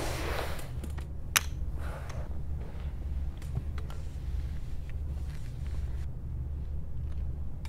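Low steady hum, with one sharp click about a second and a half in and a few faint ticks.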